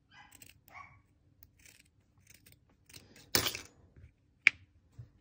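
Scissors snipping fuzzelle fleece in a few short cuts, the loudest about three and a half seconds in, followed by a sharp click.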